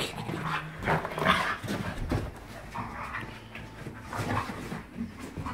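Two dogs play-fighting at close quarters, making play vocalisations and scuffling.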